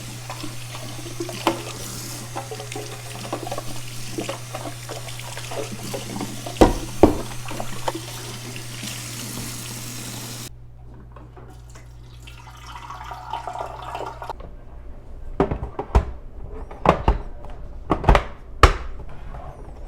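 Tap water running into and over a plastic coffee-maker water tank as it is rinsed, with a few knocks of the tank; the water stops abruptly about halfway through, followed by a series of sharp knocks and clunks as the tank is handled.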